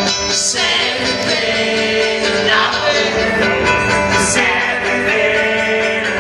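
Loud live punk rock from a guitar-and-drums duo: distorted electric guitar and pounding drums through a festival PA, with a man singing over them.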